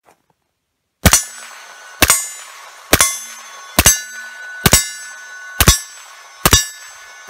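Suppressed AR-style rifle fired through a Yankee Hill Machine Phantom M2 .30 suppressor: seven shots in a steady rhythm of about one a second, starting about a second in. Each shot leaves a lingering metallic ring.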